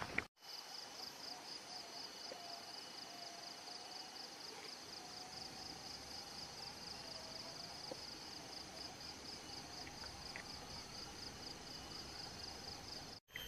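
Insects chirping steadily in a fast, even pulsing rhythm, high-pitched, with a faint wavering lower tone underneath.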